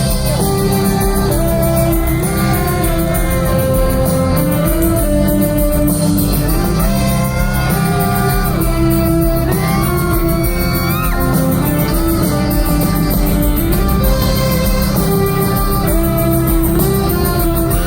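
A live band playing an instrumental break in a slow ballad: a held melody line moving step by step over a full, steady accompaniment.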